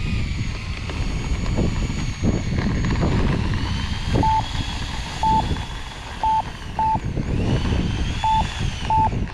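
Gusty wind buffeting the microphone, with a faint high whine that rises and falls twice and six short electronic beeps, mostly in pairs, in the second half.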